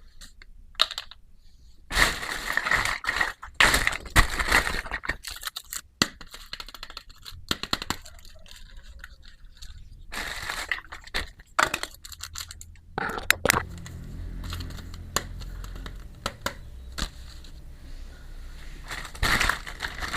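Packaging and small plastic toy pieces being handled: crinkling, scraping and sharp clicks. The handling comes in busy bursts about two to six seconds in, ten to thirteen seconds in, and near the end.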